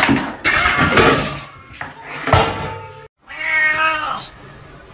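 Two cats tussling, with loud noisy scuffling bursts. The sound cuts out for a moment about three seconds in, then a cat gives one drawn-out meow lasting about a second.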